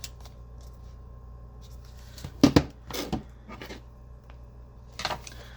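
Eyeshadow palette packaging being handled and opened: a few short knocks and rustles, the loudest about halfway through.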